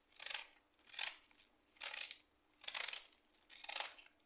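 Fresh cabbage being shredded by hand: a small blade is stroked down the cut face of a half head, and each stroke gives a crisp shearing scrape as the leaves are sliced into strands. Five strokes, a little under one a second.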